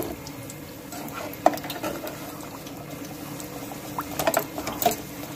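Filled wraps deep-frying in hot oil, the oil bubbling and sizzling steadily around them. A sharp click comes about one and a half seconds in, and a few more come near the end.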